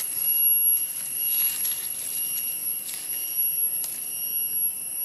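Forest insect chorus: a steady, high-pitched drone that does not change, with a few faint clicks from movement through the undergrowth.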